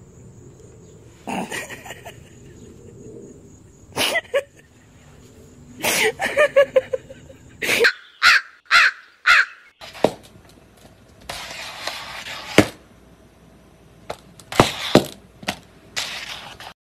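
Crow cawing four or five times in quick succession, used as a comic sound effect, amid scattered short knocks, clicks and rustling.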